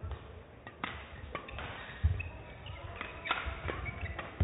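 Badminton rally: a string of sharp racket hits on the shuttlecock, with shoes squeaking and thudding on the court floor between them.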